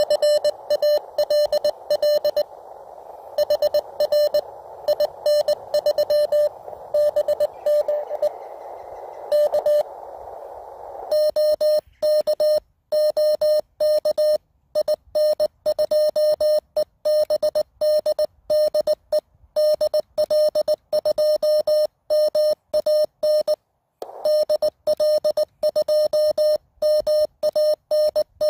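Morse code (CW) tones at one steady pitch from the (tr)uSDX QRP transceiver's small speaker. For about the first eleven seconds the keyed tones come through a hiss of band noise, as received signals; from then on they are clean with dead silence between characters, as the rig's sidetone while transmitting.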